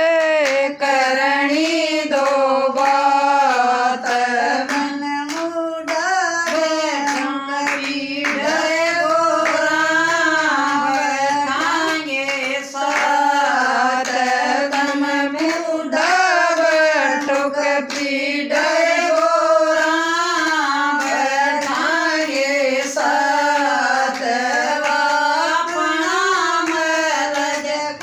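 Women singing a Haryanvi devotional bhajan to Shiva (Bhole), a single melody line held continuously, with hand claps marking the beat.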